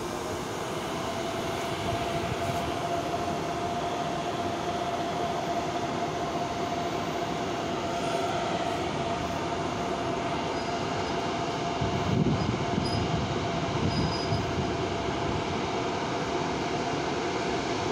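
Škoda-built ChS4 electric locomotive starting a passenger train out of the station at low speed. A steady whine glides up right at the start and then holds over the rumble of wheels on rail, and a louder rumble comes about twelve seconds in.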